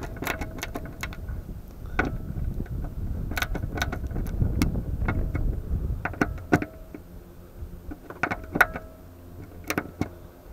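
Hand screwdriver driving screws through a solar cable fitting into a van's metal roof: scattered sharp metallic clicks at uneven spacing, some in quick pairs, over a low rumble that fades about two thirds of the way through.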